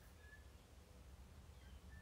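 Quiet bush ambience: a few faint, short whistled bird calls over a low steady rumble.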